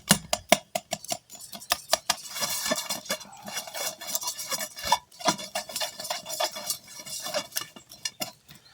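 Metal fork mashing cooked tater tots in a casserole dish: quick repeated taps and clinks of the fork against the dish, with softer scraping and squishing of the potato.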